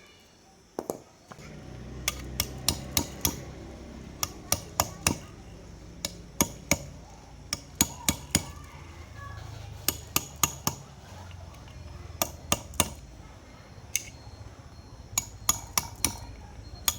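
Repeated light hammer taps on metal, sharp and irregular, coming in quick clusters of two to four strikes. A low steady hum runs underneath from about a second in.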